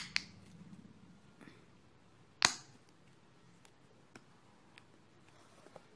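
Small plastic bottle and its cap being handled: a couple of clicks at the start, one loud sharp snap about two and a half seconds in, then a few faint ticks.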